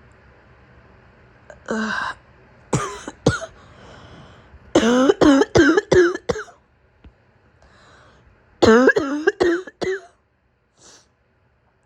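A woman with a sick, sore throat is coughing. A few single coughs come first, then two fits of five or six quick, hacking coughs in a row, the first about five seconds in and the second about nine seconds in.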